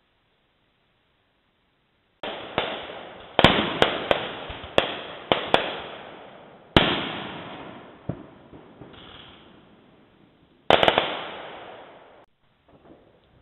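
Firecrackers going off: a quick run of sharp bangs, each followed by a fading echo, then a single bang and, near the end, another tight cluster of bangs.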